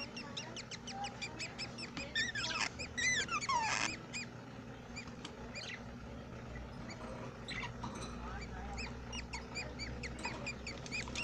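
Budgerigars chirping and chattering in quick short notes, with a few louder calls falling in pitch between about two and four seconds in.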